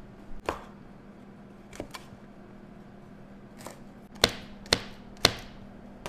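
Kitchen knife chopping on a wooden cutting board: a few light knocks, then three sharp strikes about half a second apart near the end, over a steady low hum.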